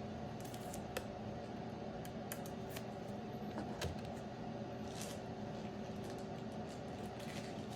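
Trading cards being handled, with faint scattered clicks and short rustles over a steady low hum.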